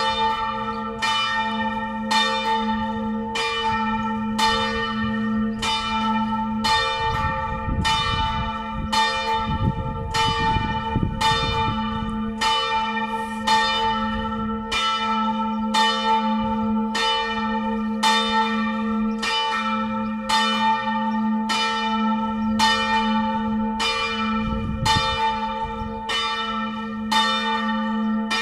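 Full peal of four swinging church bells, tuned on G-flat and hung in the Tyrolean manner, rung together for midday. Strikes come about once a second and overlap, each bell ringing on into the next.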